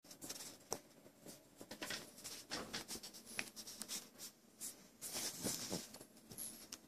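Old pug nuzzling and snuffling with its face pressed into a fabric blanket: irregular scratchy rustling and short sniffs.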